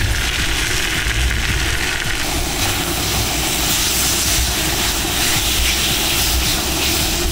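Chunks of meat sizzling hard in hot rendered fat in a cast-iron kazan: a steady, loud hiss over a low rumble.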